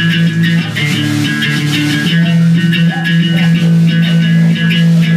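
Hardcore band playing live: electric guitar and bass over drums and cymbals, with a low note held steadily from about two seconds in.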